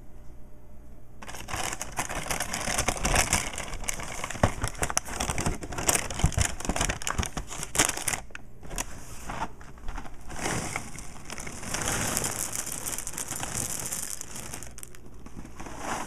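A cereal box's plastic inner bag crinkling and rustling as the box is handled and tipped, with dry cereal pieces rattling out into a glass bowl. The crackly rustle starts about a second in and goes on in uneven surges.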